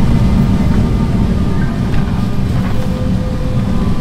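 Steady low rumble of an Airbus A340-300 cabin at the gate during boarding, with a few faint clicks and knocks.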